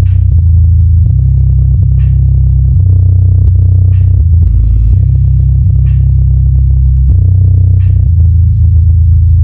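Bass-heavy hip-hop track played loud through a speaker, its woofer cone visibly pumping, for a bass test. Deep bass notes that shift pitch every second or so dominate, with a snare-like hit about every two seconds.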